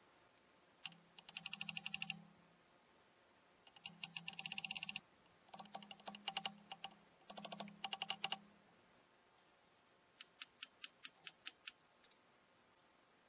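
Rapid clicking in short runs of about ten clicks a second. Four runs come with a low hum under them, and a last run of about nine clicks comes near the end.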